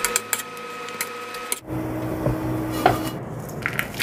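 Wooden spatula stirring and scraping dried anchovies in a dry pan, a dense patter of small clicks over a steady whine. After about a second and a half the sound cuts to a few sharper clicks and taps of the roasted anchovies in a stainless mesh sieve over a bowl.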